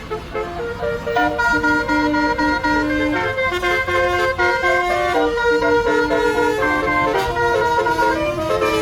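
Tour bus telolet horn playing a quick tune of changing multi-tone horn notes, louder from about a second in, over a low vehicle rumble.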